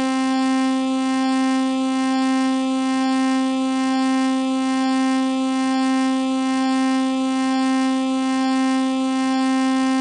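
Emergency-alert style alarm tone: one long, steady, buzzy horn-like tone held at a single pitch without rising or falling.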